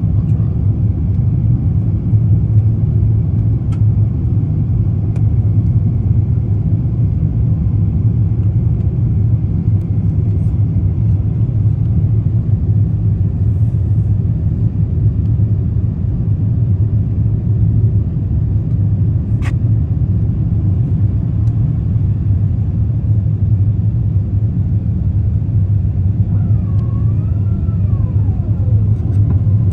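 Airliner cabin noise on the way in to land: a steady, loud low rumble of the engines and airflow. A single sharp click comes about twenty seconds in, and a short wavering high tone glides downward near the end.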